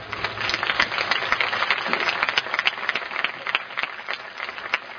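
Crowd applauding: a dense spread of hand claps that thins out near the end.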